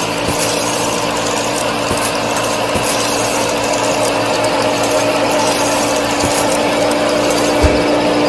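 Small motor driving the gears of a miniature model farm machine, running at a steady pitch with a continuous whirring, gear-chattering hum. A few faint clicks sound through it, the clearest near the end.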